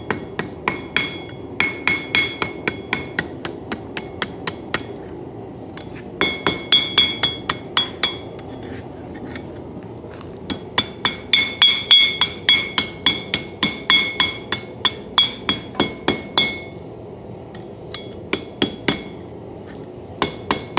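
Blacksmith's hand hammer striking hot coil-spring steel on an anvil, in runs of quick blows at about three a second, each with a bright metallic ring, with short pauses between runs.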